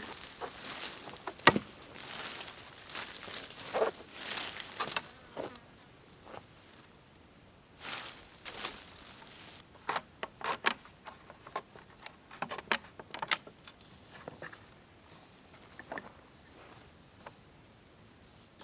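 An insect buzzing or trilling steadily at a high pitch from about five seconds in. Under and before it are scattered rustles, footstep-like crunches and sharp knocks, with one loud knock about a second and a half in.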